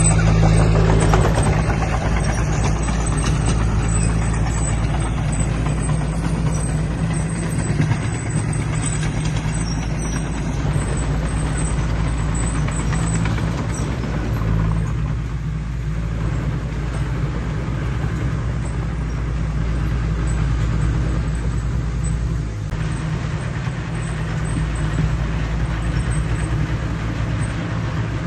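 Heavy diesel engine of earthmoving machinery running steadily under load, with a strong low engine drone.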